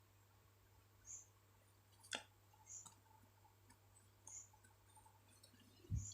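Near silence with a low steady hum, broken by a single faint computer mouse click about two seconds in and a soft low thump near the end.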